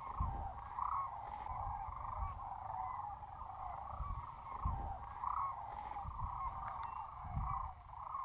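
A flock of sandhill cranes calling overhead: many rolling, trumpeting calls overlapping into a continuous chorus. Intermittent low rumbles come and go beneath it.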